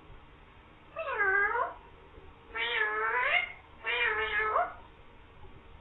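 Green parrot imitating a cat's meow, three drawn-out meow-like calls about a second apart, each dipping and then rising in pitch.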